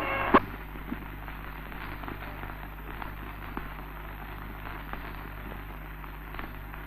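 Crackle and hiss of an old optical film soundtrack over a steady low hum, with scattered small pops. A sharp click comes about half a second in as the preceding music cuts off.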